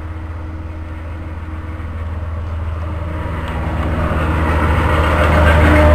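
Road traffic: a vehicle approaching on the road, its low engine rumble and tyre noise growing steadily louder.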